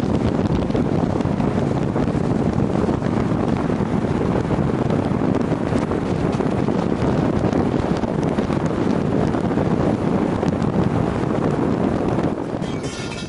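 Steady wind rushing over the microphone with rumble from a moving vehicle, easing off near the end.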